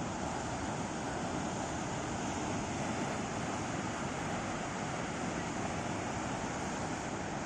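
Sea surf breaking and washing on the shore, a steady unbroken rush.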